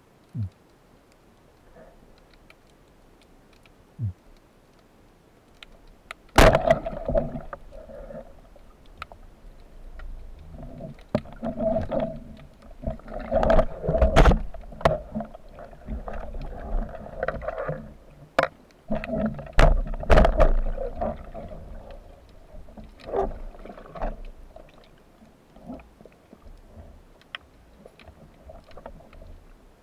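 Muffled, irregular sloshing and knocking of water against an underwater camera housing as it moves, starting about six seconds in, with sharp clicks mixed in. Two short low sounds come before it.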